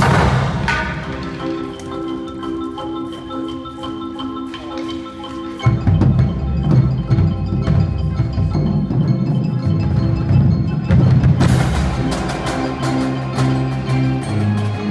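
High school indoor percussion ensemble playing: marimbas and other mallet instruments ring over long held keyboard chords. A heavy low bass part comes in about six seconds in, and dense rapid drum strokes join near the end.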